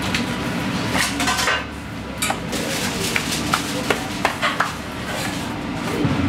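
Dishes and cutlery clinking and clattering: a string of sharp clinks, a cluster about a second in and several more in quick succession about two to four and a half seconds in, over a steady background noise.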